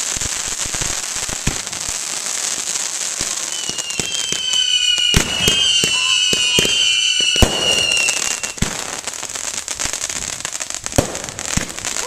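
Consumer fireworks going off: a dense hissing crackle full of small pops and sharper bangs, with a steady high whistle from a whistling firework from about three and a half to seven and a half seconds in.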